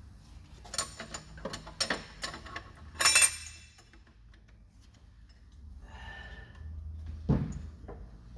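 Metal clutch plates clinking against each other and the aluminium case as a JF506E automatic transmission's clutch pack is assembled by hand, a run of light clinks ending in one loud ringing clink about three seconds in. A single dull knock follows near the end.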